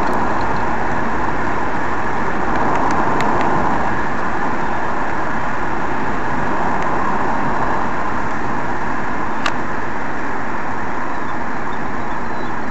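Steady road noise of a car driving at an even speed, heard from inside the cabin, with a few faint clicks.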